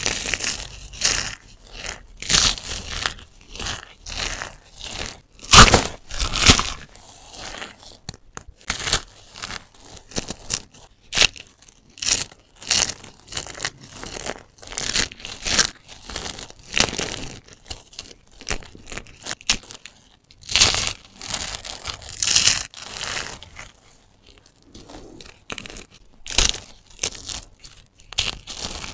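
Crunchy soap cubes crushed and crumbled between the fingers: a run of irregular crisp crunches and crackles, one handful after another with short pauses.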